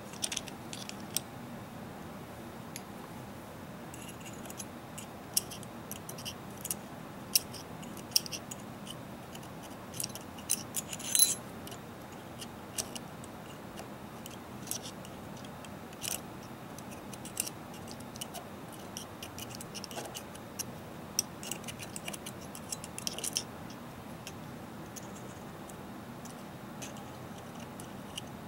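Scattered small metallic clicks and ticks of AR-15 rifle parts being handled: fingers working the sling loop and small parts at the end plate of the lower receiver's buffer tube. The clicks are irregular, with a brief cluster of louder ones about a third of the way in, over a faint steady hiss.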